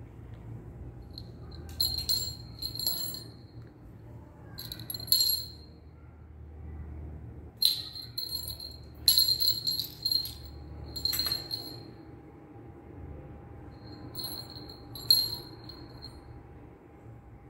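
Small jingle bell on a cat toy jingling in short bursts, about seven times at irregular intervals, as a kitten bats it around.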